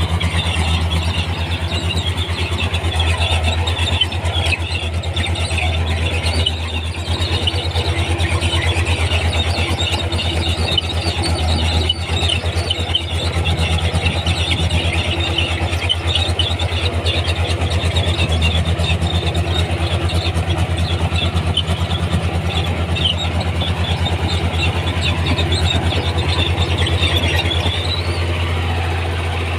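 Komatsu D31P crawler bulldozer working: its diesel engine runs steadily under load with a fast, even low throb, and a continuous high squeaking and screeching from the steel tracks and running gear rides over it.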